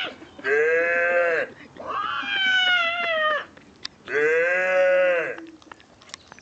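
A man imitating animal noises with his voice: three long, drawn-out, meow-like cries, the second sliding slightly down in pitch.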